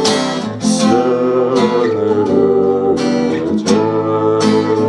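Live song accompaniment: acoustic guitar strummed steadily between sung lines, with sustained melody notes held over it.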